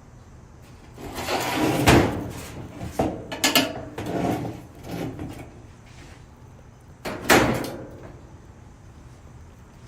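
Sheet-metal dryer front panel scraping and clunking as it is lifted and slid onto its bottom clips: a scrape that builds into a loud clunk about two seconds in, a few lighter knocks, and another sharp clunk about seven seconds in.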